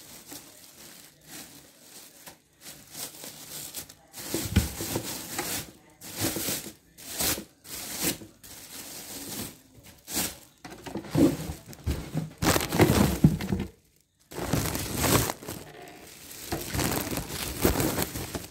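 Plastic wrapping crinkling and cardboard packing rustling as a boxed embroidery machine is unpacked by hand: irregular rustles, fainter at first and louder from about four seconds in, with a short break near the end.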